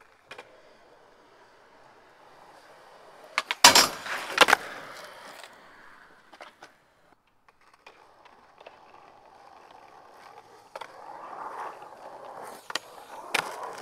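A few loud, sharp knocks clustered about four seconds in, over a quiet steady rushing noise, with scattered lighter clicks and a louder stretch of rustling and clatter near the end.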